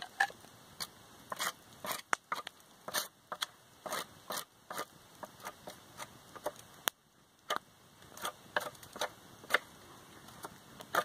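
Knife shaving bark from a spruce pole in short, irregular scraping strokes, with sharp clicks in between.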